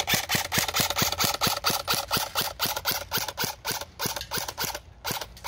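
JLS Beretta RX-4 airsoft electric gun with its stock motor firing a rapid, even string of shots, about six or seven a second, each a sharp snap of the gearbox cycling; the string breaks briefly near the end, then picks up again.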